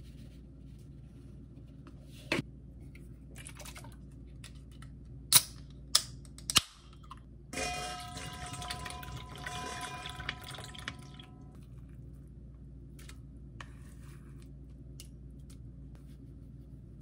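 A few sharp clicks, the loudest three close together about five to seven seconds in. Then soda is poured from a can into a stainless steel mixing bowl of soy-based marinade for about four seconds, with steady ringing tones over the splash.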